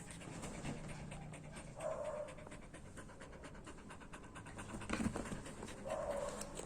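A dog panting rapidly and evenly, with a single knock about five seconds in.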